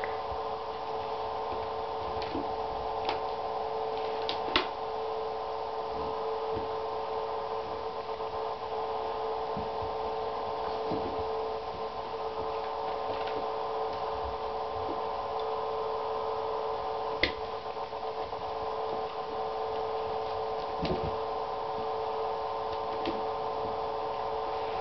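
A steady mechanical hum of several tones, with a few sharp taps and light knocks as a kitten bats toy mice about an empty bathtub; the loudest tap comes about seventeen seconds in.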